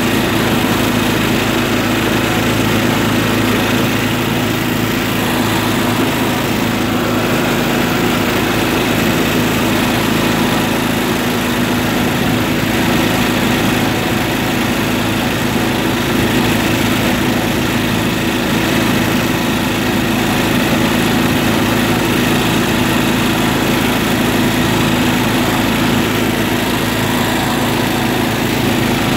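John Deere tractor engine running steadily while driving, at an even pitch and loudness throughout.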